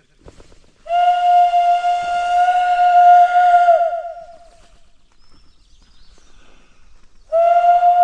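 A loud, steady, whistle-like blown tone, held for about three seconds and sounded again near the end.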